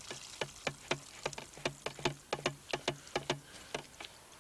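Water dripping from the emptied bucket and the sieve of casters into the tray below: a run of short, irregular drips, about three or four a second, thinning out near the end.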